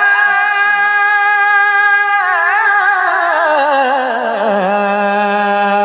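A male Quran reciter's unaccompanied voice in melodic tajweed recitation: one long high note held, then a slow wavering ornamented descent to a low held note about four and a half seconds in.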